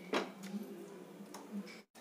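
Wooden masher knocking and working in a clay pot while mashing cooked vegetables and dal: one sharp knock just after the start, then a few lighter taps, over a steady low hum. The sound cuts out briefly near the end.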